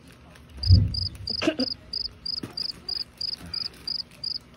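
A cricket chirping in a steady rhythm, about three short high chirps a second, starting about a second in. Just before, there is a single low thump, then brief plastic rustling as a fish bag is twisted and knotted.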